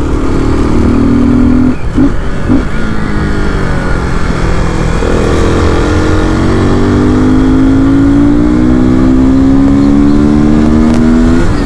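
KTM RC390's single-cylinder engine pulling along a road. It breaks briefly about two seconds in, then climbs steadily in pitch for several seconds as the bike accelerates, and drops sharply near the end.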